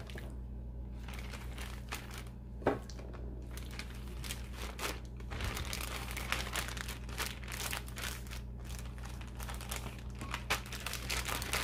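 Plastic zip-lock bag crinkling as it is handled and filled with marinated chicken, a dense irregular crackle with one sharper click a little under three seconds in, over a steady low hum.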